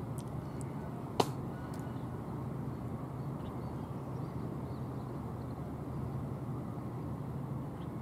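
Steady low outdoor background rumble with a faint hum, broken once by a single sharp click about a second in.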